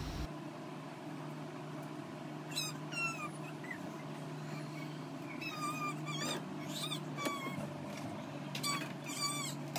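An animal's short, high-pitched squeaky calls that slide up and down in pitch, coming in scattered groups of a few at a time, over a steady low hum.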